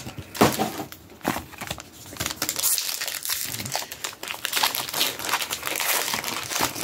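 Foil booster pack wrappers crinkling as they are torn open and handled: a dense, continuous run of crinkles, busiest from about three seconds in.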